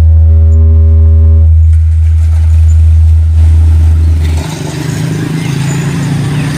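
KSA Audio carnival sound system playing a loud, steady deep bass test tone, with a few higher steady tones over it for the first second and a half. The bass cuts off suddenly about four and a half seconds in, leaving a quieter steady hum and outdoor noise.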